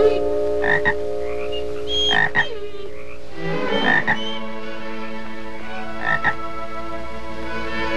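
A frog croaking: short croaks repeated about every couple of seconds, over steady held notes of an orchestral film score.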